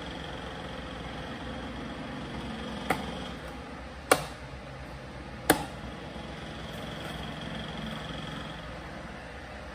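Three sharp clicks about a second apart, from a self-inking notary stamp being handled, over a steady background hum.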